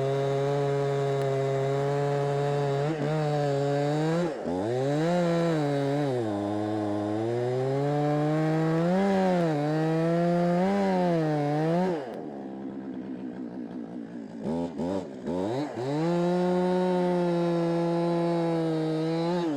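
Chainsaw running at full throttle and cutting into a walnut log. Its engine note dips and recovers several times as the chain bites into the wood, then it eases off about twelve seconds in, revs briefly, and runs steady and high again before dropping away at the end.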